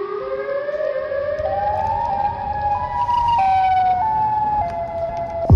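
A siren-like electronic tone climbing in pitch in small steps for about three seconds, then stepping back down. It cuts off abruptly near the end as a heavy bass hit lands.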